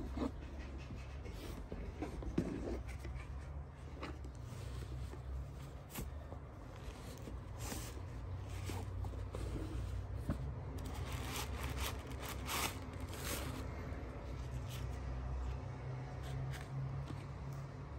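Rustling and soft scraping of cardboard and fabric as a shoebox is opened and leather sandals are drawn out of their cotton dust bags, with scattered light taps, busiest a little past the middle, over a low steady hum.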